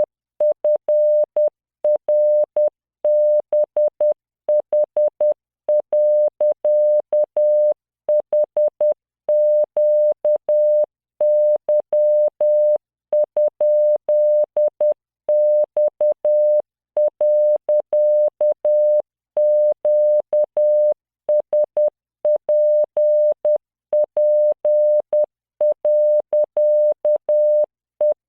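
Morse code at 10 words per minute from the LearningMorse CW training software: a single 600 Hz tone keyed on and off in short dots and longer dashes, sending random letters, figures and punctuation for copying practice. Each element starts and stops with a slight click.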